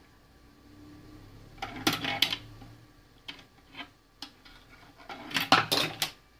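Half-pound coin fed into a coin acceptor, clinking and rattling metallically through the mechanism. There is a cluster of clicks about two seconds in, a few single ticks after that, and a louder burst of clinks near the end.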